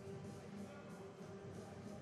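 Faint background music over a steady murmur of noise.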